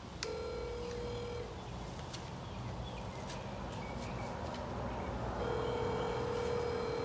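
Phone ringback tone heard through the speakerphone while an outgoing call waits to be answered: a click, then a steady ring of about a second, a pause of about four seconds, and a second ring of about two seconds.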